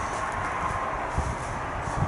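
Footsteps over twigs, leaves and rubble, with irregular low knocks and rustle from a handheld camera being carried.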